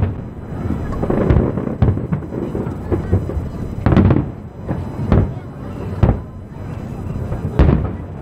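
Aerial fireworks bursting: a string of booms, roughly one every second or so, the loudest near the start, about four seconds in and near the end.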